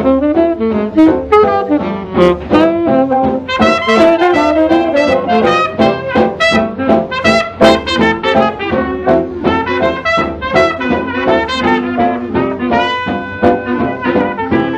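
Jazz band recording playing an instrumental passage, with horns carrying a busy melody line of short notes over the rhythm section and no vocal.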